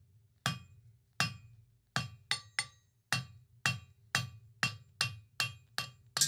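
Hand hammer striking red-hot steel on an anvil in a steady run of about a dozen blows, roughly two a second, each with a short metallic ring. The smith is necking in and drawing out the taper of a bar.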